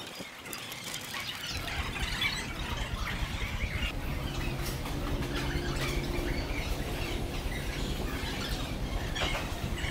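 Birds chirping and squawking over steady outdoor background noise, with a low hum coming in for a few seconds in the middle.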